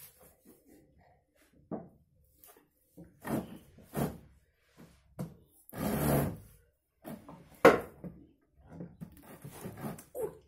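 Scattered short handling and mouth sounds: a noisy sound lasting about half a second around the middle, and one sharp knock on the table a little later that is the loudest thing heard, between fainter taps and rubs.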